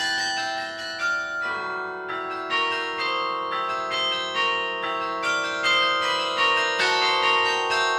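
Carillon of St. Rombout's Tower, played from its baton keyboard: tower bells struck in a flowing melody with chords. The notes come under a second apart, and each rings on beneath the next.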